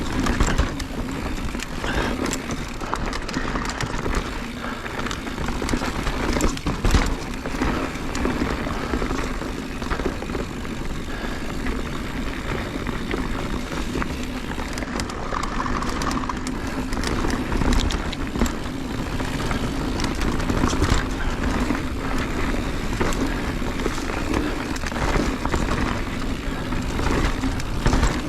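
Mountain bike descending a rocky downhill trail at speed: a steady rumble of tyres and wind buffeting the helmet or bike-mounted camera's microphone, with frequent clatters and knocks as the bike rattles over rocks.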